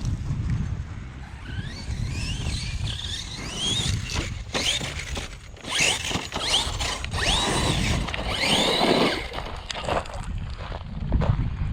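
Electric RC truck driven through bushes: the brushless motor whines up and down in short throttle bursts, with several rising-then-falling whines near the middle, over crackling and snapping of branches against the truck.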